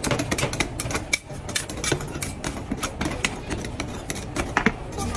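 Two metal spatulas scraping and tapping on the steel cold plate of a rolled-ice-cream pan as the ice cream base is spread and chopped: rapid, irregular clicks and scrapes, several a second.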